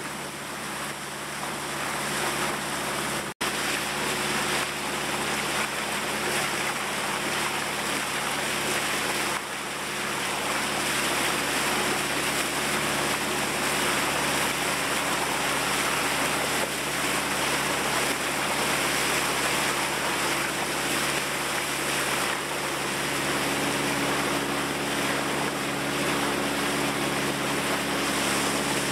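The ferry boat's engine runs with a steady hum under the rush of water along the hull and wake, and wind on the microphone. The sound drops out for an instant about three seconds in.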